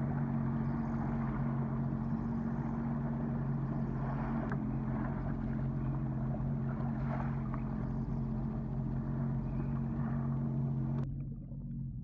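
Personal watercraft engine running steadily, a low humming drone with water and wind rush over it. About 11 seconds in the rush cuts off abruptly and only a muffled low drone remains, heard underwater.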